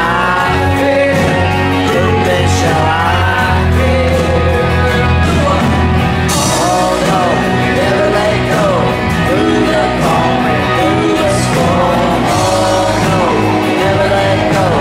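Praise and worship song: a voice singing a melody over band accompaniment with a steady bass.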